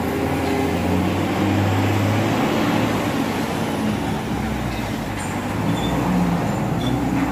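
Steady road traffic noise, with vehicle engines running.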